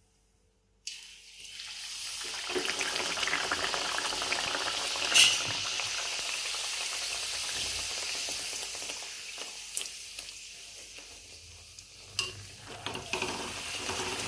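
A bhatura deep-frying in hot oil in a kadhai: a steady sizzle that starts suddenly about a second in and builds to full strength. A sharp clink of a utensil about five seconds in, and a few lighter knocks near the end.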